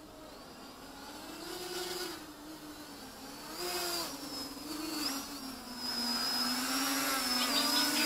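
450-size quadcopter's electric motors and propellers buzzing in flight. The pitch rises and falls as the throttle changes, and the sound grows louder as the craft comes closer. A fast chattering sound joins near the end.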